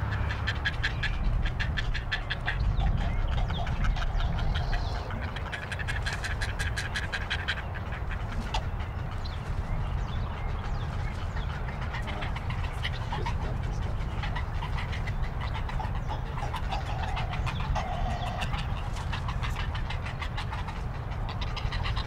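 Outdoor wetland ambience: fast, repeated pulsing animal calls over a steady low rumble, with a few short call notes in between.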